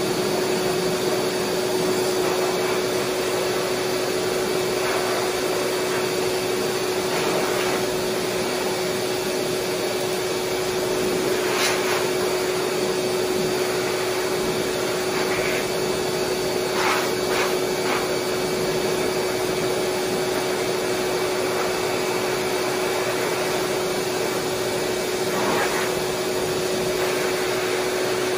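Groomer's hose-type force dryer blowing air through a dog's thick coat: a steady rush of air with a constant motor whine. There are a few light clicks partway through.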